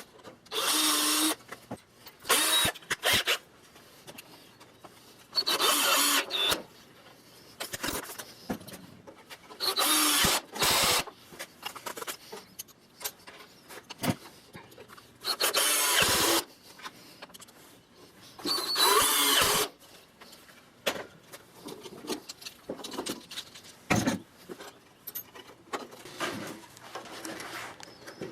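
Power drill run in about six short bursts of about a second each, with small clicks and knocks of wood and hardware handled between them.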